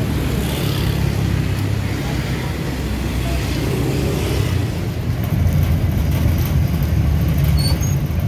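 Steady low engine rumble and road noise from riding in a vehicle through city traffic; the rumble gets louder and fuller about five seconds in.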